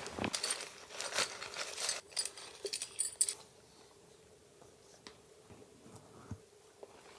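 Camping gear being handled: rustling with light metallic clinks and jingles for about the first three seconds. After that it is almost silent, with a few faint ticks.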